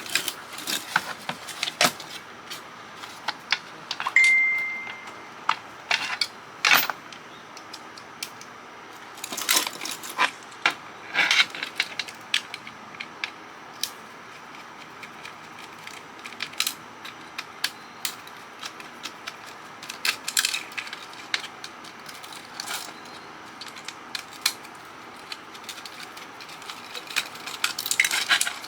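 Small metal clicks, taps and clinks of a small screwdriver and loose screws and parts being worked on a CB radio's metal chassis, irregular and scattered throughout. About four seconds in there is a short, clear ringing tone.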